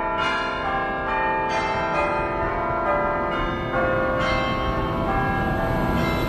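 A run of ringing, bell-like chime notes, a new note roughly every half second to a second, over a low rumble. Near the end the noise of the passing electric train rises and takes over.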